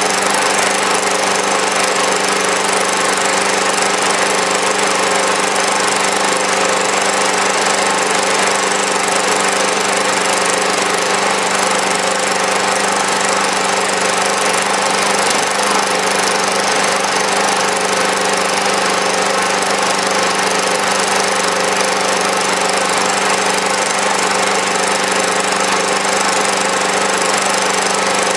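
Small overhead-valve engine in standard trim, without HHO, running steadily at a set speed under a constant electrical load of about 350 watts.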